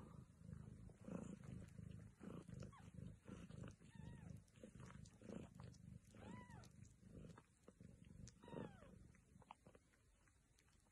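Mother cat purring with a low, rhythmic pulse. Three faint, high, arching mews from her week-old kittens come through the middle, and the purring fades near the end.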